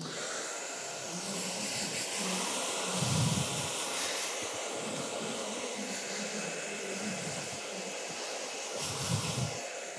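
Hair dryer switched on and blowing steadily, drying a client's hair, with brief low rumbles about three seconds in and near the end.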